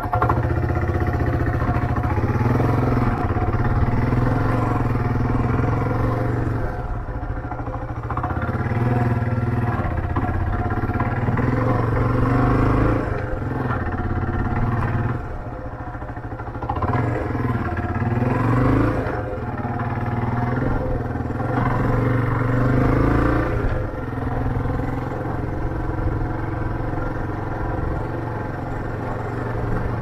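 Motorcycle engine running under way, its revs rising and falling several times as the bike speeds up and slows.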